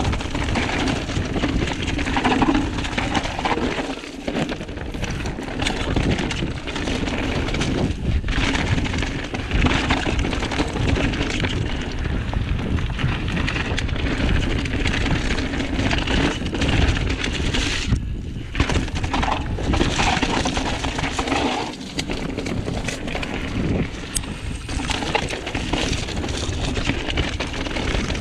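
Mountain bike riding downhill over a dirt and rock trail: tyres rolling and crunching over the ground, with the bike rattling and knocking over bumps, and wind buffeting the microphone.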